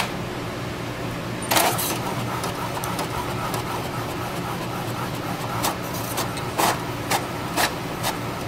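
HP DeskJet 1010 inkjet printer printing a page: its motors whir steadily, with short clicks about twice a second in the second half as the print head shuttles and the paper advances.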